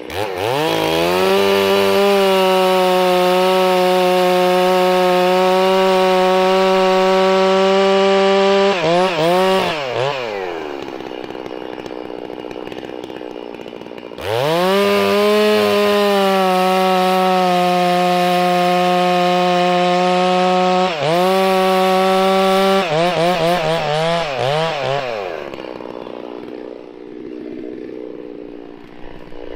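Chainsaw with a 36-inch bar at full throttle bucking a log, holding a steady high pitch through two cuts of about eight seconds each. Between the cuts and after the second one it drops back towards idle with a few wavering blips of the throttle.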